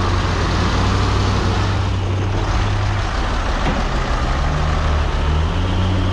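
Nissan CK 31 L truck's diesel engine running under way, heard from inside the cab. Its pitch drops around three seconds in and climbs again near the end.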